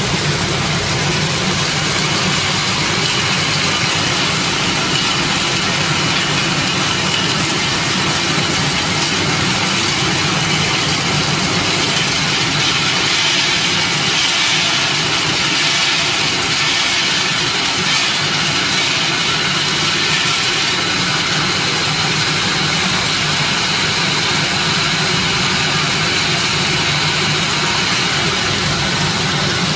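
Roasted-peanut peeling machine running steadily: an even motor hum under a broad hiss.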